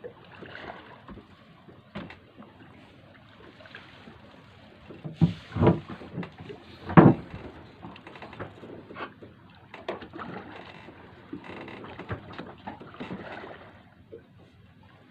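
Knocks and bumps on a small fishing boat at sea over a steady wash of noise, with a few louder thumps about five to seven seconds in.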